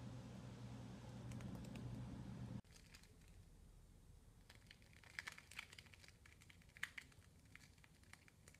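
Steady low hum that cuts off abruptly a little over two seconds in, then scattered sharp crinkling clicks of clear plastic shipping tape, loudest near the end.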